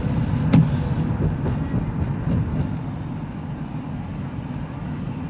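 Steady low road rumble inside a moving car's cabin, with a sharp click about half a second in.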